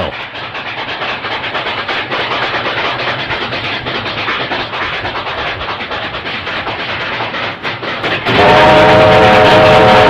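Steam locomotives working hard up a grade, their exhaust pounding in a steady rapid beat. About eight seconds in, a loud steam whistle blows a held chord of several notes.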